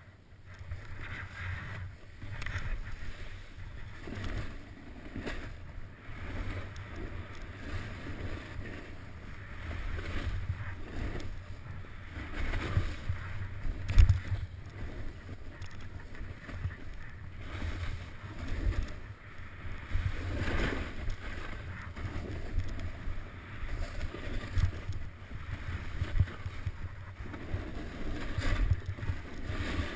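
Skiing or riding gear sliding and scraping over packed snow on a fast downhill run, the scrape swelling with each turn every second or two, under a steady low rumble of wind on the camera's microphone. A sharp knock about fourteen seconds in is the loudest moment.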